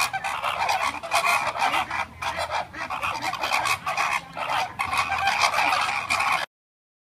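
A flock of flamingos honking, many goose-like calls overlapping in a loud, continuous chorus that cuts off suddenly near the end.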